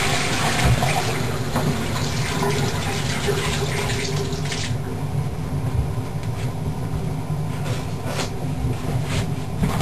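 Bathroom water running: a toilet cistern refilling after a flush while hands are washed under the sink tap. The rush of water fades out about four and a half seconds in, leaving a low steady hum with a few soft knocks.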